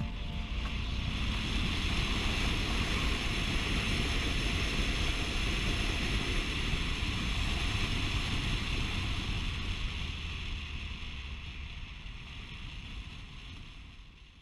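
Motorcycle riding at road speed, wind rushing over the camera microphone with the engine's low rumble underneath, fading out over the last few seconds.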